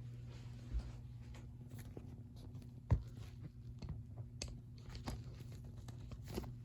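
Steady low electrical hum with scattered light clicks and knocks, and one sharper knock about three seconds in.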